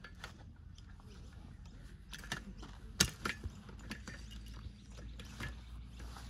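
Metal frames of Coleman folding camp chairs clicking and knocking as they are unfolded and stood on the grass, a run of sharp clicks in the second half with the loudest about three seconds in, over a low steady rumble.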